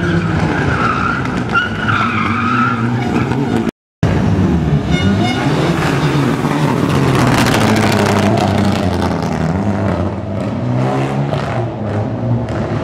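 Rally car engines revving hard, their pitch rising and falling as the cars brake and accelerate through a tyre chicane, with a wavering tyre squeal in the first few seconds. The sound cuts out abruptly for a moment just before four seconds in. A car's engine then sweeps up and down as it passes close, loudest around seven to eight seconds.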